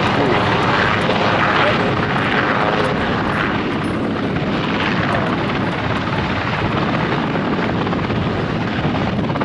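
Aircraft engine running steadily, loud and even, with no sharp changes.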